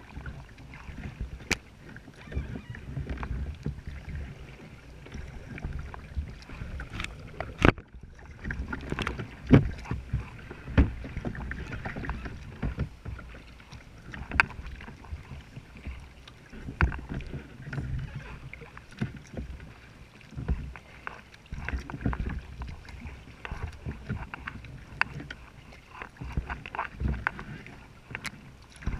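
Kayak paddling: the paddle blades dipping and splashing, with the swish of each stroke coming every second or two, and irregular sharp knocks against the hull and deck fittings.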